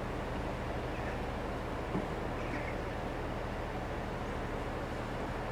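Steady outdoor background noise with a low rumble, and a small knock about two seconds in.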